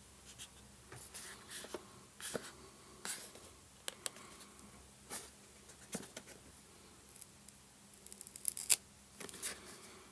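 Hands handling a smartphone and its packaging: scattered light clicks, scrapes and rustles, with a quick run of clicks about eight and a half seconds in.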